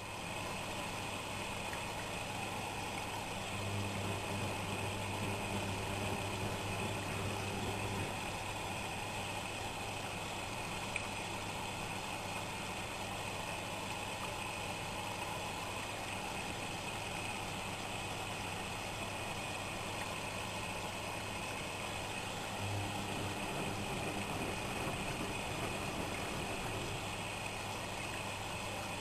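Whirlpool Expert 1000 front-loading washing machine running, its motor giving a steady low hum that comes in at the start and holds evenly throughout.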